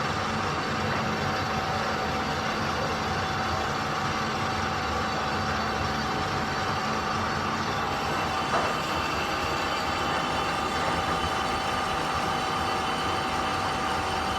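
Workshop machinery running steadily: a continuous mechanical hum with a few constant tones, and one brief knock a little over halfway through.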